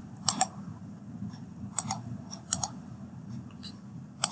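Several short, sharp clicks at irregular intervals, some in quick pairs, over a faint steady low hum.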